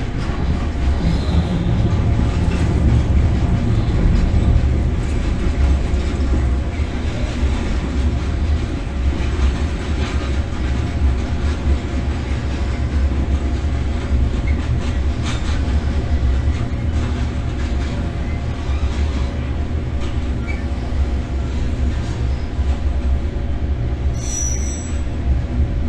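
Electric freight locomotive heard from its cab, running along the track with a steady low rumble and several steady hums. Scattered clicks come as the wheels cross points and rail joints, and a short high squeal sounds near the end.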